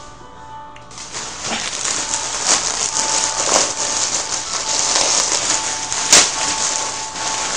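Loud rustling and crackling close to the microphone, setting in about a second in, with a sharp crack near the six-second mark.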